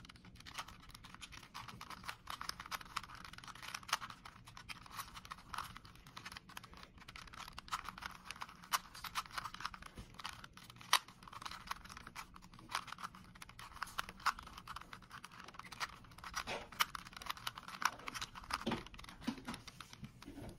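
3x3 Rubik's Cube layers being twisted by hand in quick succession: a continuous run of rapid plastic clicks and scraping, with occasional louder sharp clicks.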